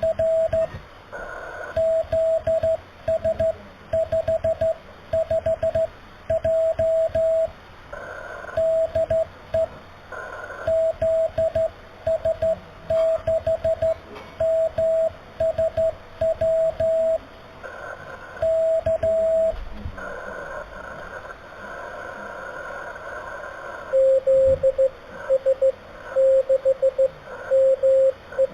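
Slow Morse code (CW) on an HF amateur radio: a steady beep keyed in dots and dashes over radio band hiss. About 24 seconds in, the keying switches to a lower-pitched tone.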